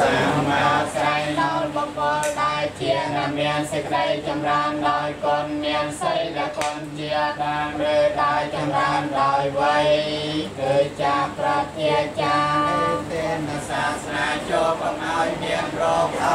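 A group of voices singing together, with a steady low drone beneath.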